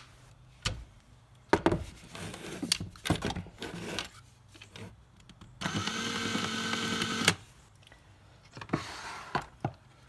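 Scattered light clicks and knocks of handling. About five and a half seconds in, a power drill fitted with a mini lathe chuck holding a coin ring runs briefly, with a steady whine for about a second and a half, then stops.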